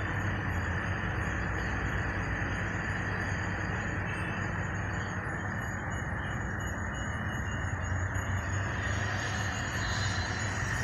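A steady low mechanical hum with an even rushing noise, unchanging throughout.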